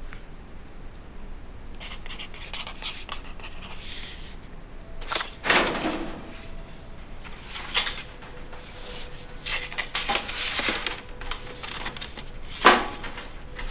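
Handling sounds of a wallet and paper files: several short rustling, scraping bursts, and a sharp click about a second before the end.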